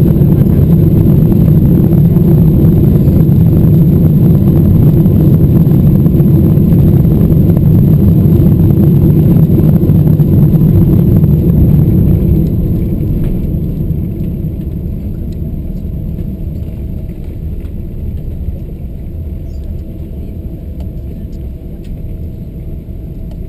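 Boeing 777-200ER landing rollout heard from the cabin: a loud, steady roar of engines and rushing air as the jet decelerates on the runway with spoilers up. About twelve seconds in the roar falls away sharply, leaving a quieter rumble that keeps easing as the aircraft slows.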